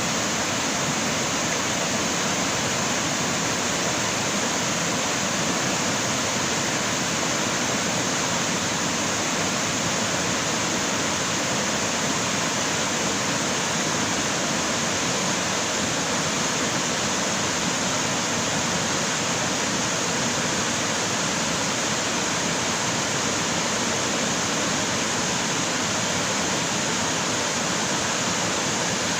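Creek water running in a steady, unbroken rush.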